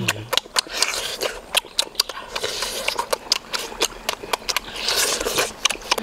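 Close-up wet chewing and lip-smacking as cooked octopus is eaten, an irregular run of short clicky smacks, several a second.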